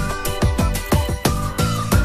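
Background music with a steady electronic beat of punchy kick drums and a sliding lead melody.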